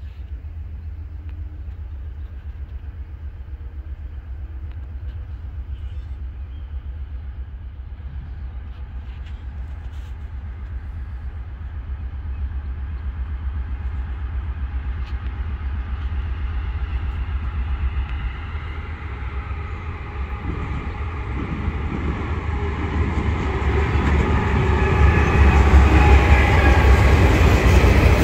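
Diesel locomotives leading a loaded coal train approach and pass, their engine and wheel rumble growing steadily louder and loudest near the end as the locomotives go by.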